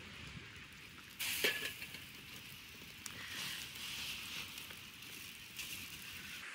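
Wood fire in a campfire pit crackling with many small pops over a steady hiss, with one louder pop about a second in.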